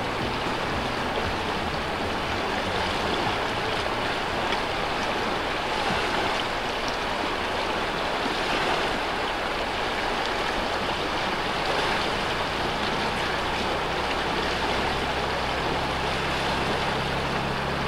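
River water rushing steadily past. From about two-thirds of the way through, a low steady hum joins underneath.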